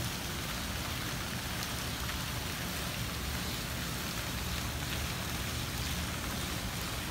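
Courtyard fountains splashing steadily into a pool: an even hiss of falling water over a low rumble.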